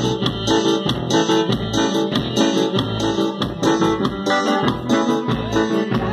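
Dance music led by an electric keyboard, with a steady beat.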